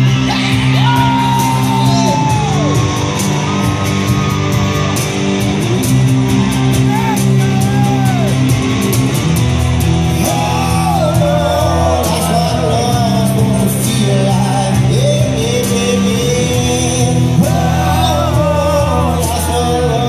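Live country-rock band playing: a man singing over electric guitars, with a steady beat from a hand-played cajon.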